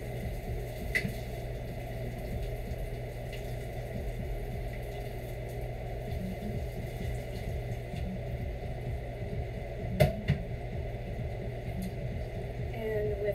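Water running into a kitchen sink over a steady low hum, with a light click about a second in and two quick knocks about ten seconds in.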